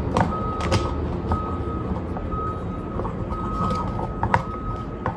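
Sharp plastic clicks from handling and adjusting a small mini tripod. Behind them run a steady low rumble and an irregular, repeating high beeping tone.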